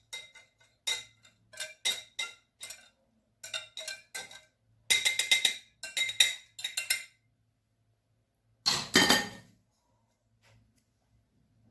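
Kitchen utensil scraping and knocking against a mixing bowl and pan while cake batter is poured out: a run of short ringing clinks, then longer scraping strokes, with one last scrape a few seconds before the end.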